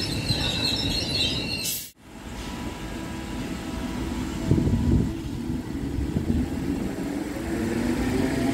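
Irish Rail 8100-class DART electric train running along the platform: wheels rumble on the rails, with a few knocks about halfway through, and the traction motors give a rising whine near the end as it gathers speed. A high squeal at the start is cut off abruptly about two seconds in.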